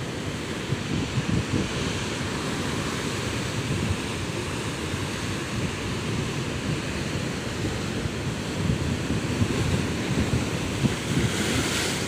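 Rough sea waves breaking and washing over low rocks, a continuous churn of surf and foam, with wind buffeting the microphone. A brighter hiss of spray rises near the end.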